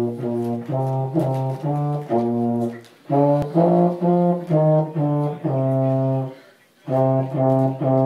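Euphonium played by a beginner of about three months: a simple tune in short, separate notes, with a break for breath about six seconds in.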